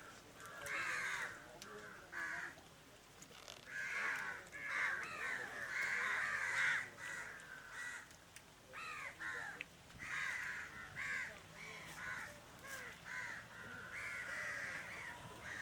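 Several crows cawing repeatedly, their calls overlapping one another.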